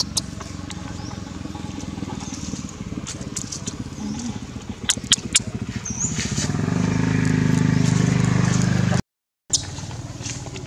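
A motor vehicle engine running steadily nearby, growing louder about two-thirds of the way through, with a few sharp clicks over it; the sound cuts out briefly near the end.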